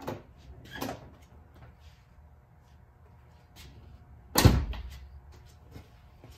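Two light knocks, then one loud thump about four and a half seconds in that rings out briefly, like a door shutting or a heavy object set down.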